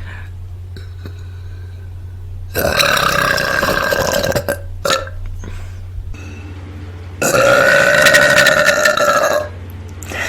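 A woman burping twice: a long burp about two and a half seconds in, then a louder one of about two seconds near the end.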